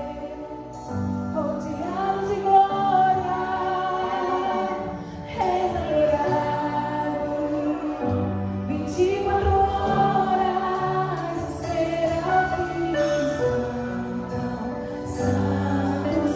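Gospel worship song: a choir singing over sustained instrumental accompaniment with held bass notes.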